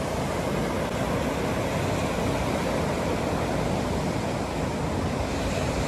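Rough sea surf breaking and washing up a sandy beach, a steady wash of waves without pause.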